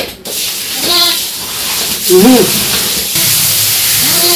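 Water splashing over a lamb being washed on a concrete floor, becoming a louder, steady rush about three seconds in as a garden hose sprays it. Three short cries sound over the water.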